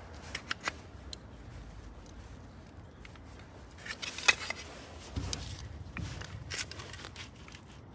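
Scattered light clicks, taps and scrapes of a plastic photoelectric beam housing being shifted by hand on its mount, with a sharper click about four seconds in and a few duller knocks soon after. No alignment tone sounds: the beams are not yet aligned.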